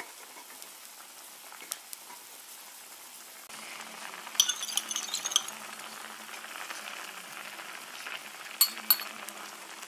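A pot of ramyeon boiling hard on a portable gas stove: a steady bubbling hiss that grows louder about three and a half seconds in. Two short runs of sharp clinks come in the middle and near the end as beaten egg is poured in from a bowl.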